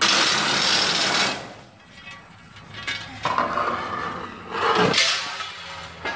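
A long metal pole dragged with one end scraping along the ground and then a concrete floor: a loud scrape at the start and another, longer one from about three seconds in.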